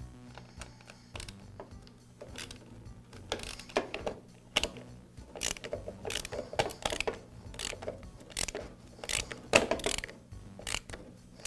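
Screwdriver turning the cable-clamp screw on a Briggs & Stratton small engine's primer base as the throttle cable is refitted: irregular metallic clicks and short scrapes with a ratchet-like clicking, sparse at first and busier after about two seconds.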